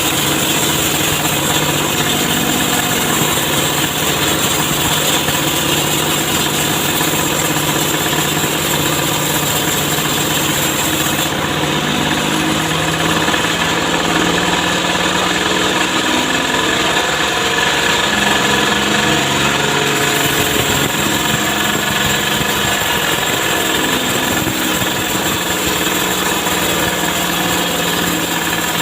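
Chainsaw engine running steadily for the whole stretch, its pitch shifting a couple of times.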